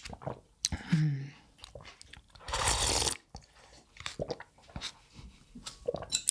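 Udon noodles being slurped from a bowl of miso soup: one long, loud slurp about two and a half seconds in, shorter slurps around it, and wet chewing and mouth clicks between them, with a brief hum near one second.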